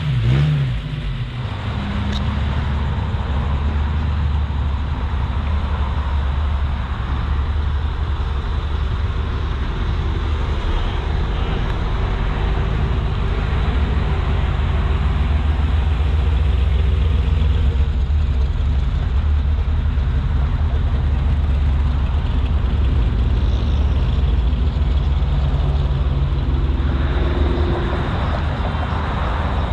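Classic car engines running slowly close by, a steady low rumble, with traffic noise around them.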